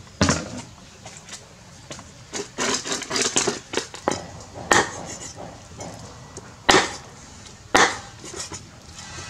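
A knife chopping raw chicken on a thick wooden chopping block: sharp single chops a second or two apart, with a quick run of several chops near the middle.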